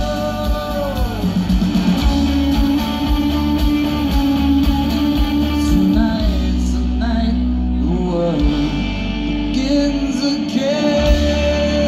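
Live rock band playing: a male lead singer holds long notes that slide between pitches over acoustic and electric guitars, drums and a heavy bass, heard from the crowd in a large hall.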